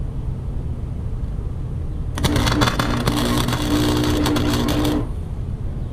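Stick-welding arc crackling and sizzling for about three seconds while a tack weld is laid on a steel lawn-mower handle, with a steady buzz under it. It starts about two seconds in and cuts off about five seconds in.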